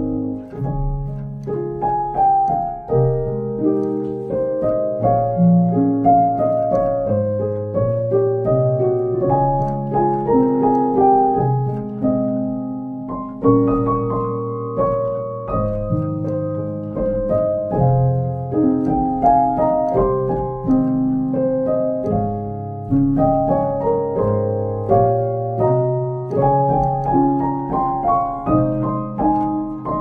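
Background piano music: a melody of single notes over held lower notes.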